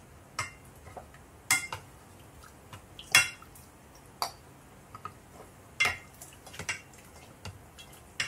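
A spoon and eggs knocking against a cooking pot as eggs are put in to boil: a string of sharp clinks about a second apart, some with a short metallic ring, the loudest about three seconds in.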